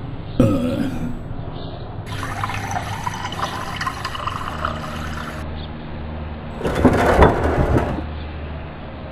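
Water sounds: liquid hissing and running for about three seconds, then a louder splash of water about seven seconds in, over a steady low hum.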